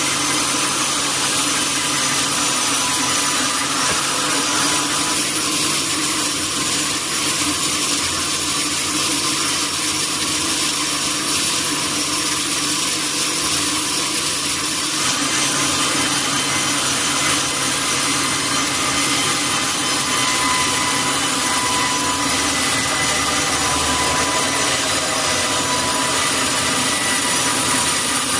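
Sawmill saw running steadily through a durian log, a continuous loud cutting noise with a thin steady whine over it.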